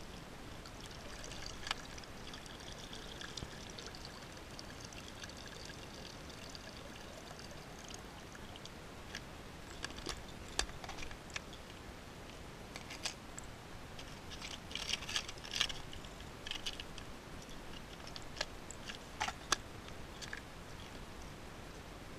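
Water gurgling in a plastic bottle dipped under the lake surface, with a few steady pitched notes in the gurgle over the first several seconds. Then scattered sharp clicks and rattles of a clear plastic lure box being opened and hard-bodied lures being handled.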